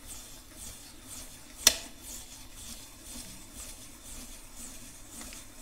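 Hand-cranked spiral potato cutter turning, its blade shaving a peeled potato on a skewer with a soft, repeated scraping. One sharp click about a second and a half in.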